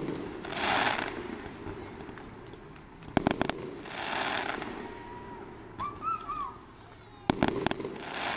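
Aerial fireworks going off: three volleys of sharp bangs, about three to four seconds apart, each followed by a crackling hiss of about a second.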